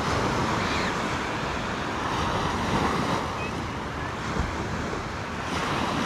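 Small waves breaking and washing up a sand-and-shingle beach, a steady rush of surf, with some wind on the microphone.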